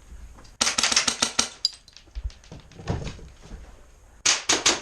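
Airsoft gun firing two rapid bursts of sharp clicking shots, about ten a second: one about half a second in that lasts about a second, and another near the end, with a dull knock between them.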